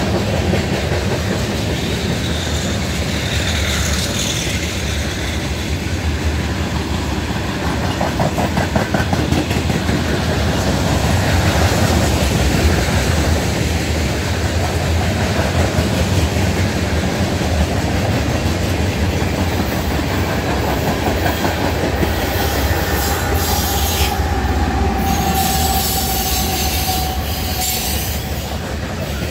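Freight cars, covered hoppers and then gondolas, rolling past close by: a steady rumble of steel wheels on rail with clicking over the rail joints. A thin wheel squeal rises up for a few seconds near the end.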